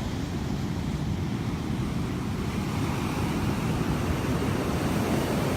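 Ocean surf breaking steadily on the beach, with wind buffeting the microphone.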